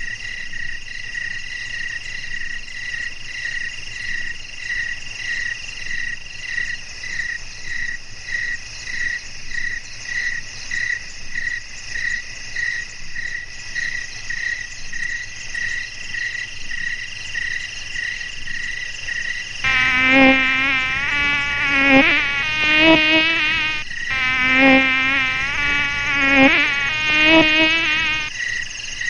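Crickets chirping steadily, about two high chirps a second. About two-thirds of the way in, a louder mosquito whine joins in about four bursts, its pitch wavering up and down.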